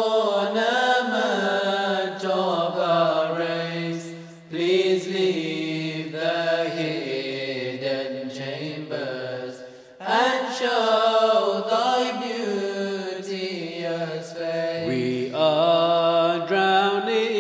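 Voices singing an English qasida, a Sufi devotional song in praise of the Prophet, in slow, drawn-out chanted phrases. The singing breaks off briefly about four seconds in and again about ten seconds in.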